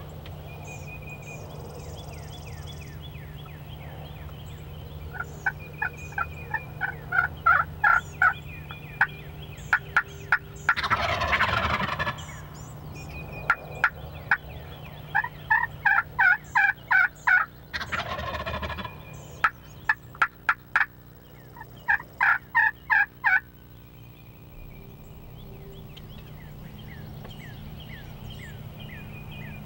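Wild turkeys calling: three loud runs of rapid repeated notes, about four a second, with fainter calls between them and two brief rushing bursts of noise partway through.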